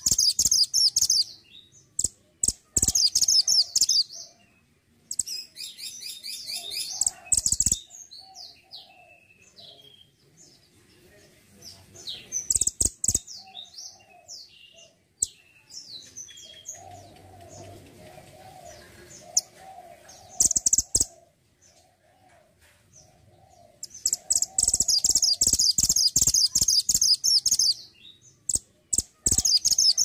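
Caged mantenan gunung songbird singing in bursts of rapid, high twittering phrases, with scattered single notes between the bursts and a long loud stretch about three quarters of the way through. Sharp clicks sound between the phrases.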